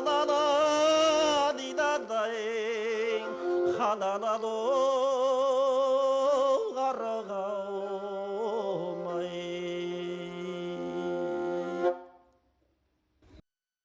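Kazakh folk music: a melody with a wide, wavering vibrato over a steady held drone, ending about twelve seconds in.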